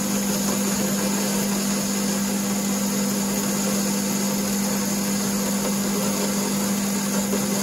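Myford ML-7 lathe running steadily under power feed, its turning tool taking a clean, light cut on the metal workpiece: a constant hum over an even hiss.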